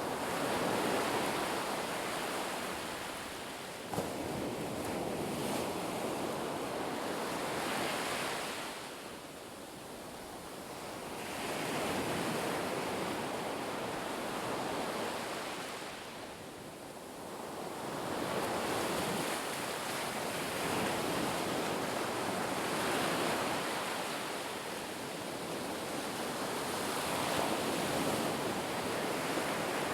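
Ocean surf: waves washing in a continuous roar of water that swells and ebbs every several seconds. There is a brief click about four seconds in.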